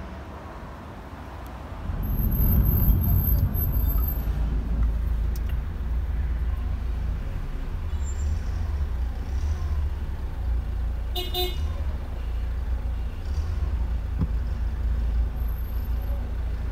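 Steady low rumble of a motor vehicle that comes up about two seconds in, with one short toot about eleven seconds in.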